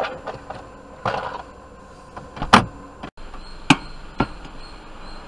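A series of separate knocks and thumps, heard from inside a car, the loudest about two and a half seconds in.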